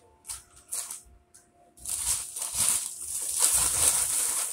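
Plastic snack packaging rustling and crinkling as packs are handled: a few soft rustles, then loud continuous crinkling from about two seconds in.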